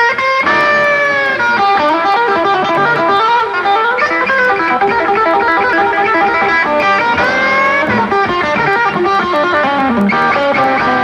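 Twangy electric guitar played in fast country chicken-picking runs on a double-neck guit-steel (guitar and lap steel on one body), the notes tumbling quickly, with a few notes sliding down about a second in and sliding up around seven seconds in.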